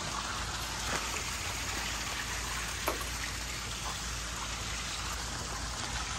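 Koi pond waterfall splashing steadily, with a light knock about three seconds in.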